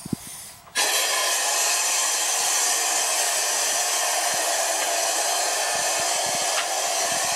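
Compressed air rushing out steadily through a bathtub's faucet and water lines from an air hose, blowing out the water to winterize the plumbing; it starts suddenly about a second in after a little handling noise.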